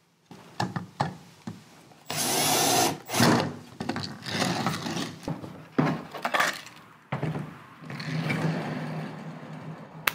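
Cordless drill driving screws into pine wood in short runs, the longest and loudest about two seconds in, with wooden knocks as the pieces are handled. From about seven seconds in comes a steady whir from the ball-bearing lazy Susan turntable as the pine stand is spun.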